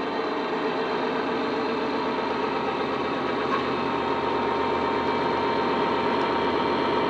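Model Class 66 locomotive's DCC sound decoder playing the diesel engine sound of a Class 66, an EMD two-stroke V12, through its small onboard speaker as the train runs. The engine note is steady and grows slightly louder, and a thin steady whine joins about halfway through.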